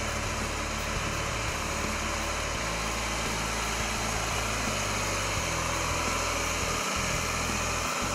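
Case IH STX385 Quadtrac tractor's diesel engine running steadily as the tractor drives past on its rubber tracks.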